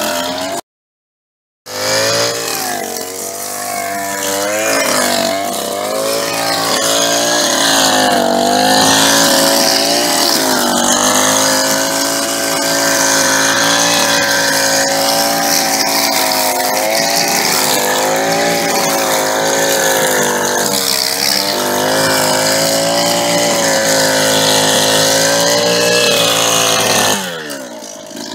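Small two-stroke engine of a string trimmer running at high speed, its pitch wandering up and down as the line cuts through grass and weeds. It cuts out to silence for about a second near the start and falls away in pitch near the end.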